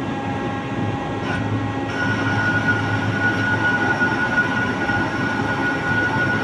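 Metalworking machine tool running as it machines a workpiece: a steady mechanical hum and noise, with a high steady whine coming in about two seconds in as the cut goes on.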